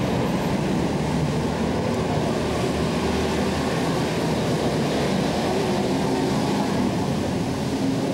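Steady city traffic noise: cars, taxis and a bus running through a wide intersection on wet road.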